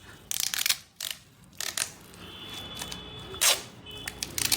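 Adhesive tape being pulled off the roll and pressed onto a cricket bat: a string of short, crackling rips, the loudest about half a second in and again about three and a half seconds in.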